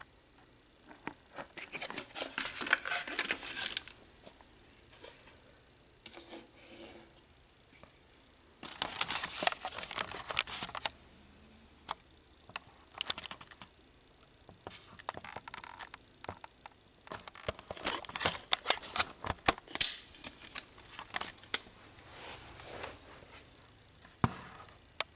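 Cardboard box and packaging being handled and opened: three spells of rustling and crinkling, with many small clicks and taps between them and a single sharp knock near the end.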